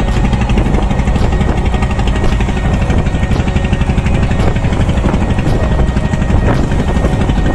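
A fishing boat's engine running steadily under way, with a fast, even throb, over the rush of wind and choppy water.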